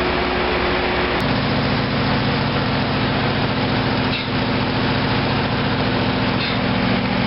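Small gasoline engine of a service truck's red air compressor running steadily with an even hum, supplying air for pumping antifreeze out of a drum. About a second in, it takes over from a different steady engine drone that carried a held tone.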